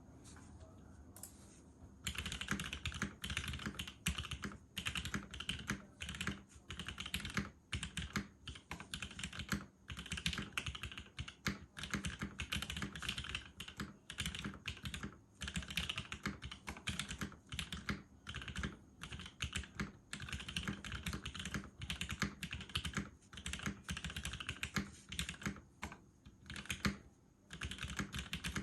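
Continuous fast typing on a custom mechanical keyboard with lubed and filmed Gateron Black Ink linear switches in a polycarbonate case, under GMK keycaps. It starts about two seconds in, a dense run of key clacks with short pauses between bursts.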